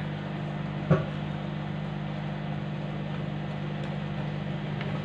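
A steady low machine hum with a single sharp clink about a second in.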